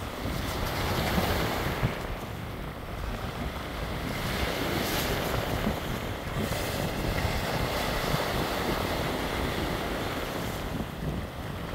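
Sea waves washing and breaking against a rocky shore, swelling and ebbing in surges, the loudest about five seconds in. Wind rumbles on the microphone underneath.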